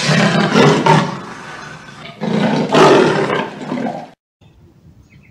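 Big cat roaring in two long, rough roars, the second of which cuts off abruptly about four seconds in.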